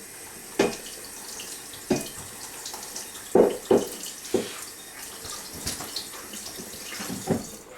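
Tap running into a sink as a heavy metal block is rinsed under it, with several sharp knocks as the block is handled, the loudest two a little past the middle.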